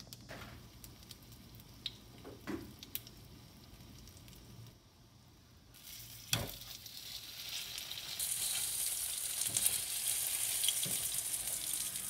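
Sotteok skewers, rice cake and sausage, frying in a small nonstick pan on a gas stove: a few light handling clicks, a knock about six seconds in as a skewer is set in the pan, then a sizzle that builds and turns into a dense, bright crackle from about eight seconds in.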